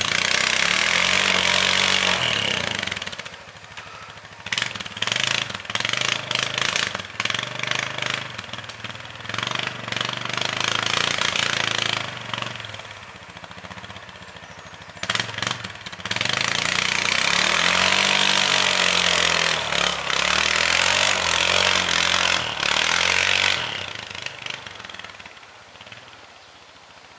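ATV engines running and revving on a snowy trail, the pitch rising and falling with the throttle. Loudest for the first few seconds and again for several seconds about two-thirds in, then fading away near the end.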